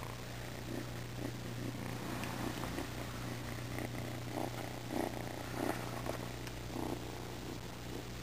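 Young kitten purring while being stroked, the purr coming in soft pulses about every half second to second, over a steady low hum.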